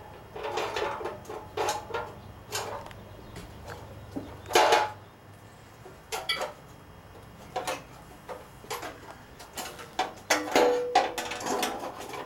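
Scattered clanks and knocks of metal parts being handled and fitted on a Corvair engine, with the loudest knock about four and a half seconds in and a busier run of knocks near the end.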